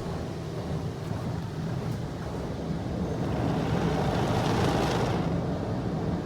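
Automatic car wash running, heard from inside the car: a steady low machine hum under a rushing hiss that swells between about three and five seconds in.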